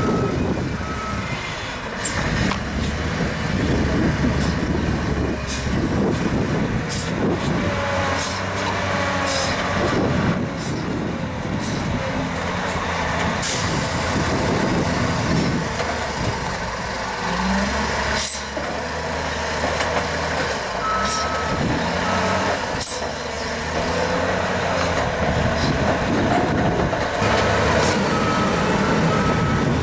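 Diesel engine of a Werklust wheel loader working a grass silage clamp, its revs rising and falling as it drives and pushes the grass. A reversing alarm beeps in short spells, and there are occasional sharp knocks.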